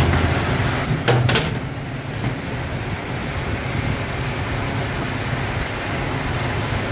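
Steady hum and noise of factory machinery running, with a few sharp clicks about a second in.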